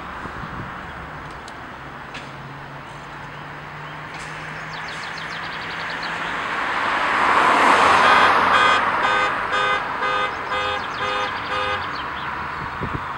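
A car passes on the road, its tyre and engine noise swelling to a peak about eight seconds in and then fading. As it goes by, a rapid pitched electronic beeping, about three beeps a second, sounds for a few seconds.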